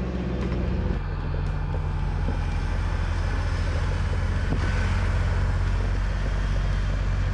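4x4 truck engine running steadily at low speed, a deep even drone; its note shifts about a second in.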